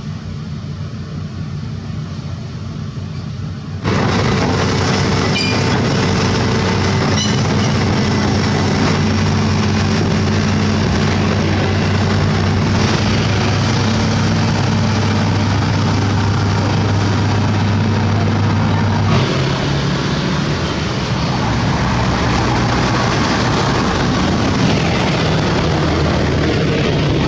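Heavy diesel engine running loud and steady, with a sudden jump in loudness about four seconds in and a change in its note about two-thirds of the way through.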